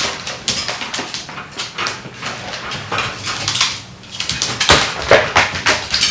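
A small dachshund whining, mixed with quick scrabbling and clicking noises, as a dog does when asking to be let out.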